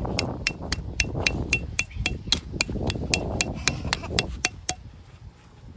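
Tent peg being hammered into the ground: quick, even blows, about three a second, each with a short ring, stopping a little before the end.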